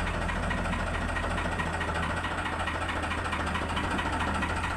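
Farmtrac tractor's diesel engine running steadily at low revs as the tractor moves slowly.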